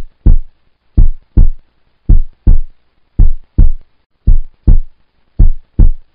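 Heartbeat sound effect ticking off a quiz countdown timer: pairs of short low thumps, about one pair a second.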